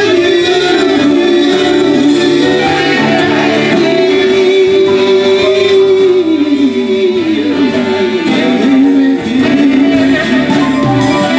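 A live band with saxophone, keyboard, acoustic guitar and electric bass playing a song, a held lead melody sliding down partway through.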